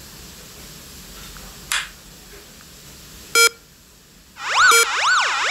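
A short click, then a short beep, then about four seconds in a home security alarm siren starts. The siren is loud and warbling, sweeping up and down a little under twice a second. It sounds for an entry alert: a door was opened while the system was armed in away mode.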